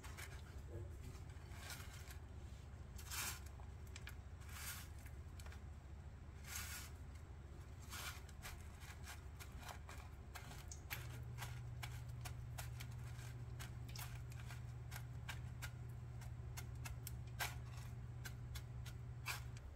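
Crushed Flamin' Hot chip crumbs crunching and rustling as an egg-washed egg roll is pressed and rolled in them by hand, in many short, irregular crackles. A low steady hum runs underneath and gets a little louder about halfway through.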